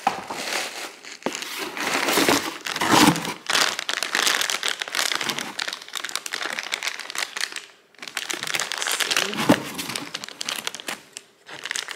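Packaging crinkling and rustling in irregular bursts as items are handled and pulled out, with short pauses about eight seconds in and near the end.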